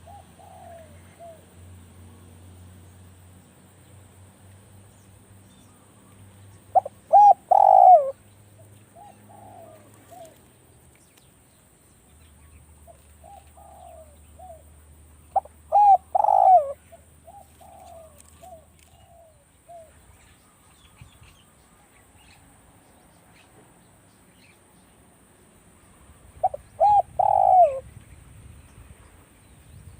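Spotted doves cooing, the calls of a caged decoy dove set out to lure a wild one. Three loud cooing phrases of a few quick notes come about ten seconds apart, with softer cooing in between.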